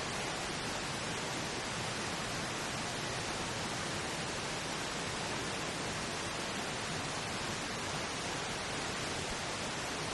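Steady pink noise, an even hiss with no change in level.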